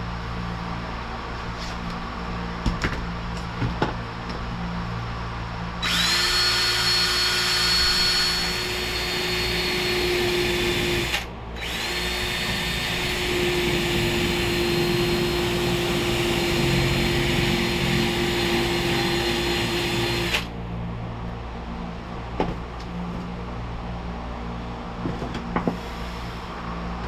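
Electric drill drilling out the rivets of a wing window frame: the motor whines steadily for two runs of several seconds, the first starting about six seconds in and the second after a brief stop. Scattered light clicks and knocks of handling come before and after, over a low steady hum.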